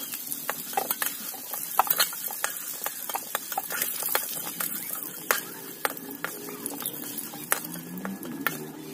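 Metal spatula scraping and clinking in a metal kadai and against a steel plate as fried potato pieces are lifted out of the oil, in quick irregular knocks. A light sizzle of hot oil carries on underneath.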